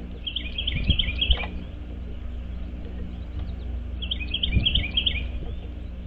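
Songbird singing two short trilled phrases, each a quick run of repeated down-slurred notes, the second about four seconds in, with a few low thumps underneath.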